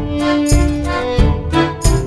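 Background instrumental music with a steady beat, about three beats every two seconds.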